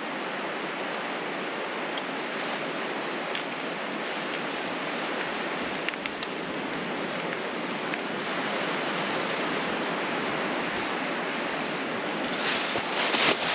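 Steady rushing outdoor noise, even and without any tone, with a few faint ticks.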